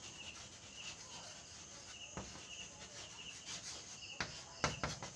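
Chalk scratching and tapping on a blackboard as words are written, with a few sharp strokes near the end. A cricket chirps in short, regular bursts in the background.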